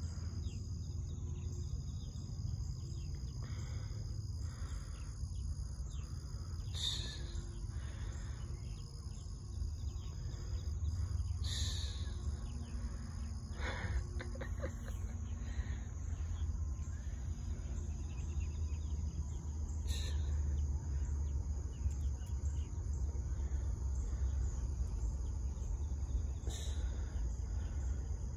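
A steady high insect drone over a low rumble that grows louder partway through, with a few short chirps.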